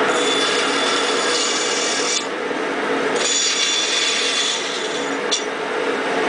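Bandsaw cutting a notch into a Paulownia wood fireboard for friction fire. The blade's higher cutting noise goes for about two seconds, drops away for a second while the saw keeps running, then cuts again for about two seconds.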